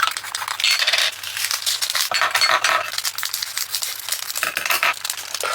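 Diamond-painting resin drills rattling and clicking into a plastic storage container, a dense run of tiny clicks, with a plastic bag crinkling.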